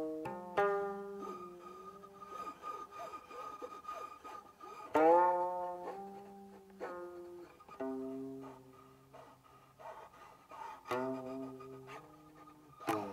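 Guqin played solo: single plucked notes that ring and fade, some sliding in pitch after the pluck, with the loudest pluck about five seconds in.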